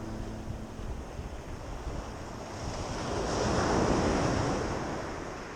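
Sea surf: a wave rushes up the shore, swelling to its loudest a little past halfway and then drawing back.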